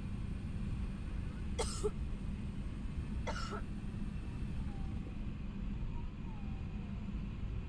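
Steady low cabin rumble of an Airbus A380 taxiing with its engines at idle. Two short coughs are heard about one and a half and three seconds in.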